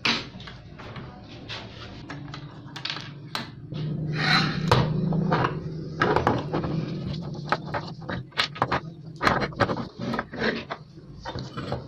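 A rusty steel hand pruner being taken apart by hand: irregular clinks and knocks as its metal halves are handled and set down on a wooden table, with a longer scraping rub about four seconds in.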